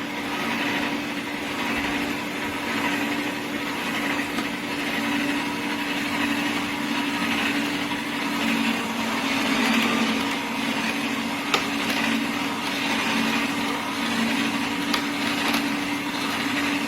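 AMZCHEF slow masticating juicer's 200 W motor running with a steady hum, with a few sharp clicks partway through.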